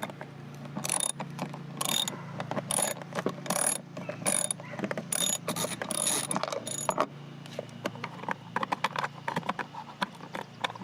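Socket ratchet clicking in repeated back-strokes as a 7 mm socket turns out a fastener. The strokes come roughly once a second, then turn into quicker, finer clicking near the end.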